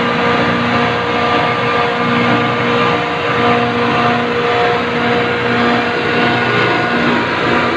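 Ice plant refrigeration compressors running: a loud, steady machinery drone with several steady hums on top.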